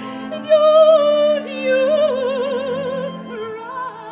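Operatic singing with a wide, even vibrato over sustained orchestral chords, swelling about half a second in and fading toward the end.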